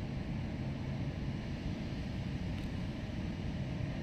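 Steady low background hum and hiss, with one faint tick about two and a half seconds in.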